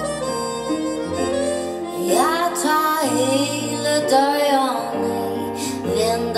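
Music from a television broadcast: a woman singing a song over instrumental backing, with long held notes.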